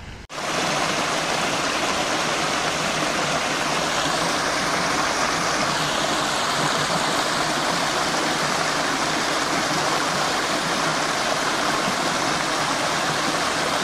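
Small waterfall splashing over a rock ledge: a steady, even rush of falling water that begins suddenly just after the start.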